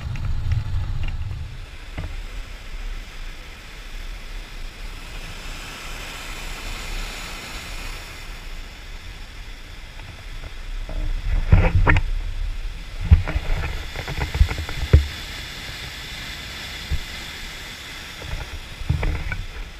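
Whitewater rushing and churning through a concrete spillway and over river rapids, a steady rush throughout. A low rumble in the first two seconds, and several sharp thumps about halfway through and near the end.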